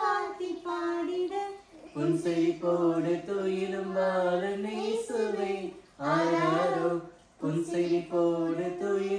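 A woman and girls singing a Tamil Christmas song together without accompaniment, in long held notes with short breaths between phrases; a lower voice joins about two seconds in.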